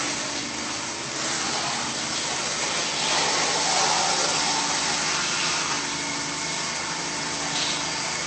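Pressure washer spraying: a steady hiss of the water jet over the even hum of its motor, a little louder from about three seconds in.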